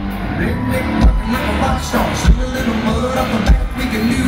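Live country-rock band playing loud through a concert PA, heard from the crowd, with heavy low thumps on the beat about once a second.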